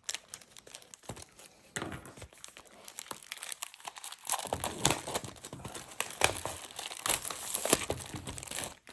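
Plastic shrink wrap being torn and crumpled off a trading card hobby box, in irregular crinkles and rips that grow busier about halfway through and stop suddenly near the end.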